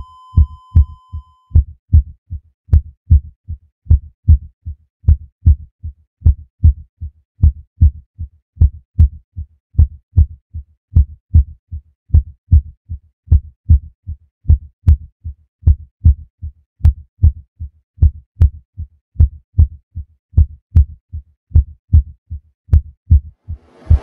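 Heartbeat sound effect: a steady lub-dub of low double thumps repeating evenly throughout. A high steady ringing tone, like ear-ringing, fades out in the first second and a half.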